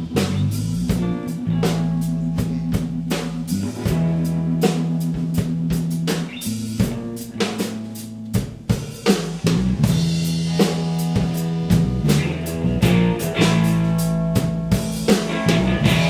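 Background music with a steady drum-kit beat over held bass notes.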